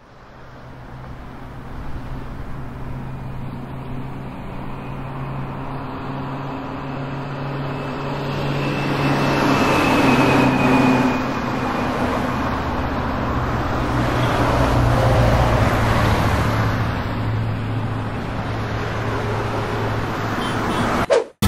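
Busy city road traffic: a steady hum of engines and tyres, swelling louder as vehicles pass about ten and fifteen seconds in, then cutting off suddenly near the end.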